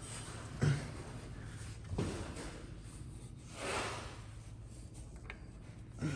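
Soft knocks and a brief scrape of hands and metal parts being handled, as the new oil filter is fitted and threaded on by hand.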